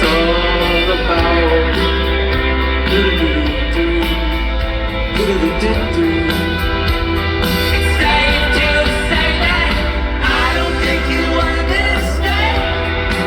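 Rock band playing live, with a male singer's vocal line over guitar, bass and drums and a heavy, steady bass.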